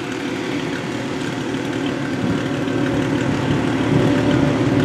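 Engine of a modified Daihatsu-based off-road trial vehicle running under load as it drives through deep mud, growing steadily louder as it comes closer.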